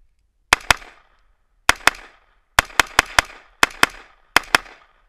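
AR-15 rifle firing twelve rapid semi-automatic shots, mostly in quick pairs about a fifth of a second apart, with one run of four in the middle.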